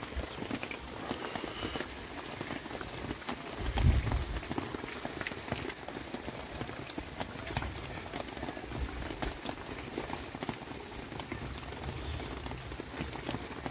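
Soft rustling and crackling of a fleece blanket as a small Pomeranian noses and burrows into it, with a low thump about four seconds in.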